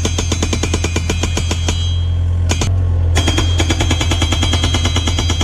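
Excavator-mounted hydraulic rock breaker, modified for fencing, hammering a timber fence post into the ground in rapid, even blows with a metallic ring, over the steady hum of the excavator's engine. The hammering pauses briefly about two and a half seconds in, then starts again.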